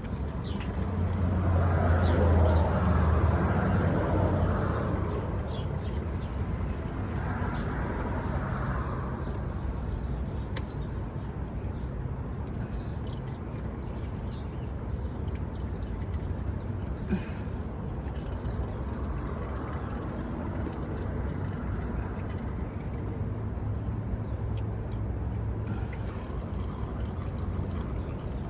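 Old engine oil dripping and trickling from the Nissan Xterra's oil pan drain into a drain pan, under steady background noise. A louder low hum swells in the first few seconds and then fades.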